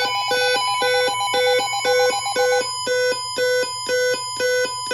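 Electronic emergency alert tone beeping about two and a half times a second, with a second, faster-pulsing tone over it that stops about two and a half seconds in. It is the alert signal that heralds a flash flood warning.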